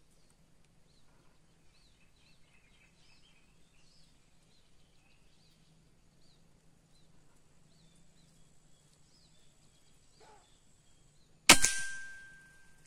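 A single air rifle shot: one sharp crack near the end with a short ringing tail. Faint high bird chirps come before it.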